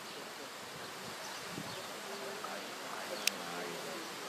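Steady outdoor background hiss with a faint, wavering low buzz, and one sharp click about three seconds in.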